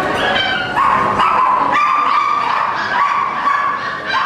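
A poodle whining and yipping: a run of high, drawn-out cries, several in a row, each held for up to about a second.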